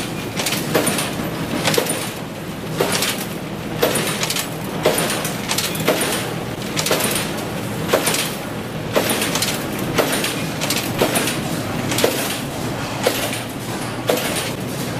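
A steel wire straightening and cutting machine running with a steady mechanical din and a sharp clack about once a second.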